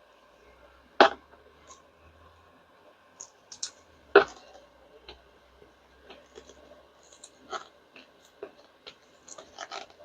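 Small handling noises of resin-crafting tools and cups on a table: scattered light clicks and scratches, with two sharper knocks about a second in and about four seconds in.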